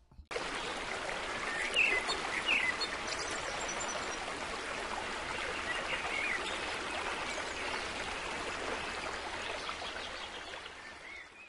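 Steady rush of running water, with a few short high chirps over it. It starts suddenly.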